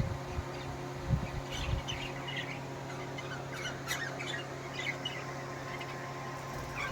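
Pet parrots giving short, scattered chirps and squawks, with a couple of low thumps near the start over a steady low hum.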